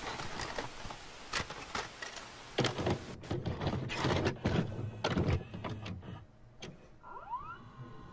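A videocassette recorder working: a string of mechanical clicks and clunks over a hiss, then a short rising whine about seven seconds in as the tape starts to play.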